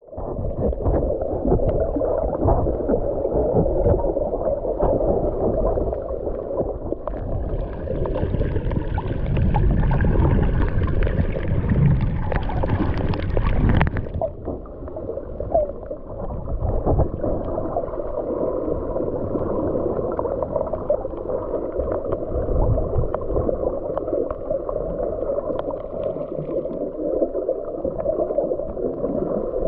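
Muffled underwater water noise from a camera in its waterproof housing while snorkeling: a steady low sloshing and gurgling rumble. From about 8 seconds a brighter, hissier splashing joins in, then cuts off suddenly at about 14 seconds.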